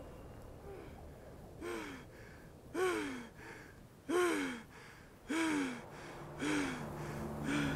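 A man sobbing: about six gasping cries, roughly a second apart, each falling in pitch. A low music drone comes in near the end.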